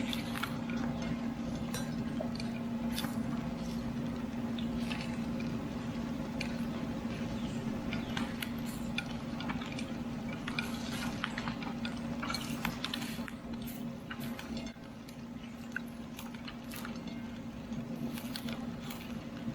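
Pork chops sizzling and crackling on a charcoal grill, with scattered sharp clicks and clinks that thin out and get a little quieter about two-thirds of the way through, over a steady low hum.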